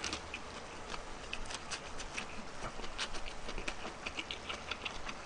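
Close-up chewing of a large mouthful of a leaf-wrapped meat bite (ssam), heard as a run of quick, irregular small wet clicks and smacks.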